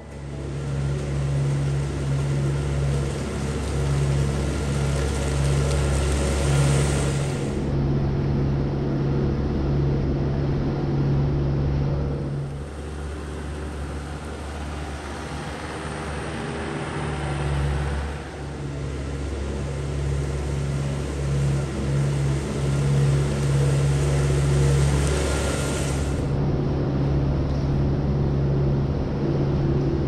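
Tractor engine running at a steady speed during barn scraping, with a hiss above the hum that eases off for a few seconds twice.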